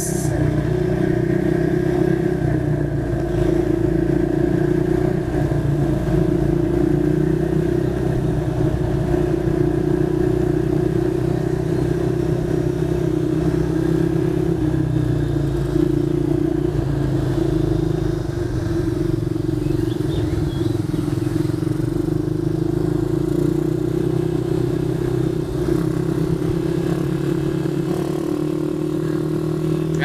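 A 150 cc automatic ATV's horizontal motorcycle-type engine (a semi-automatic gearbox, not a CVT) running steadily as it cruises at low speed along a road. Other small motorcycle engines run close by.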